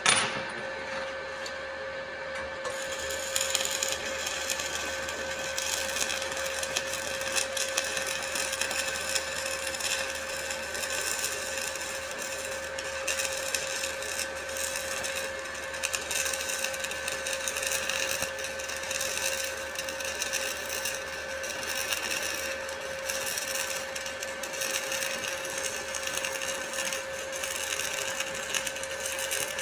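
Stick (SMAW) welding arc: a sharp crack right at the start, then continuous crackling and sputtering from about two and a half seconds in, over a steady hum.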